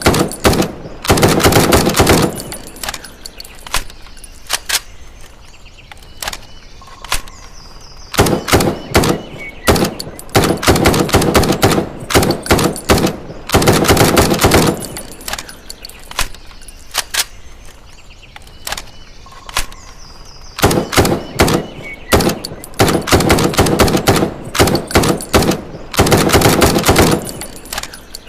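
M656 rifle gunfire sound effect: rapid automatic bursts alternating with stretches of separate single shots, the same sequence repeating about every 13 seconds.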